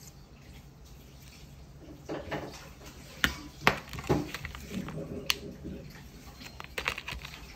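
Ingredient packages handled and set down on a kitchen counter: a few sharp, light knocks and clicks, the loudest about three seconds in, with rustling of plastic packaging.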